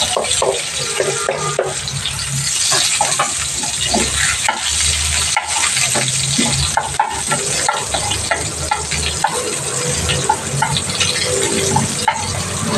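Sliced red onions sizzling in oil in a frying pan, with a wooden spatula scraping and tapping against the pan as they are stirred.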